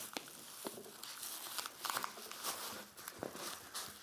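Packaging crinkling and rustling with many small sharp clicks and rattles, as a boxed speaker is taken out and unwrapped.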